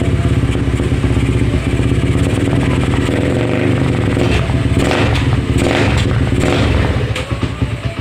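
Carburetted Suzuki Raider motorcycle engine running through an aftermarket power pipe exhaust, a steady, rapid exhaust beat with a few short throttle blips in the second half, settling lower near the end.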